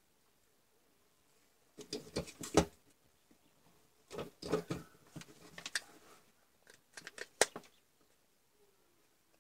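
Clicking, tapping and rustling of the opened Dremel 3000's motor assembly and plastic housing half being handled, in three short bursts with sharp clicks near the end of the first and last.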